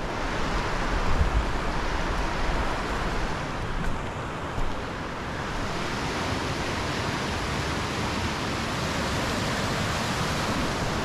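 Steady, loud rush of a big whitewater rapid on a swollen river, churning water with no break. Low thumps come through in the first few seconds.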